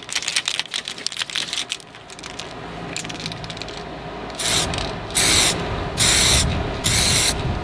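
An aerosol can of weld-through primer rattling as it is shaken, then sprayed in about four short hisses, each roughly half a second long.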